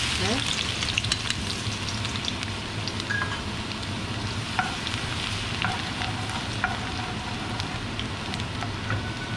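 Chopped aromatics frying in hot oil in a wok, a steady sizzle and crackle, stirred with a wooden spatula.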